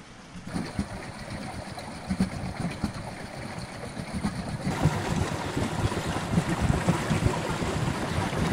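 River water rushing and splashing through the channel of a homemade paddle wheel turning in the current. It is a steady rush that grows louder about halfway through.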